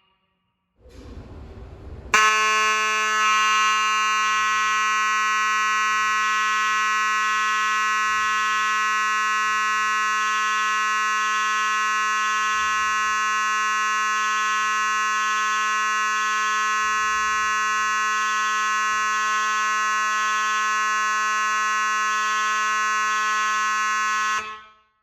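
Simplex 2901-9838 fire alarm horn sounding a continuous, steady buzzy tone for about 22 seconds, then cutting off sharply. A second or so of low rumble comes before it starts.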